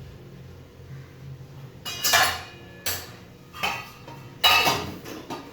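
Kitchen pots and utensils clattering: four sharp clanks with brief ringing, starting about two seconds in, the loudest near the end.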